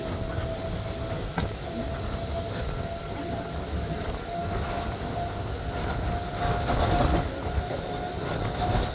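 Mumbai suburban electric local train running at speed, heard from its open doorway: a steady rumble of wheels on the rails and rushing air, with a thin steady whine above it and occasional faint clicks from the track.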